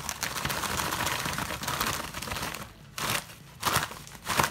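Plastic mailer bag and bubble wrap crinkling as the bag is shaken out. The rustling runs steadily at first, then breaks into three short rustles in the last two seconds.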